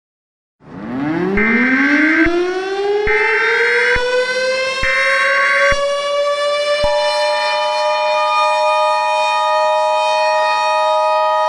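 Mock Emergency Alert System opening: a civil defense siren winds up from a low pitch to a steady wail, with three short screeching EAS header data bursts about a second and a half apart over it. About seven seconds in, the steady two-tone EAS attention signal starts.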